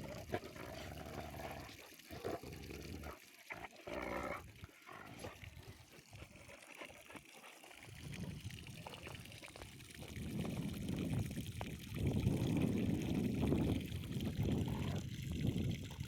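Water pouring and trickling from watering the trees, louder from about ten seconds in.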